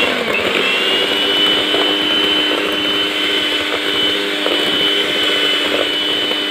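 Electric hand mixer running steadily at speed, a motor whine with a high, even tone, its beaters whipping egg whites and sugar toward stiff peaks.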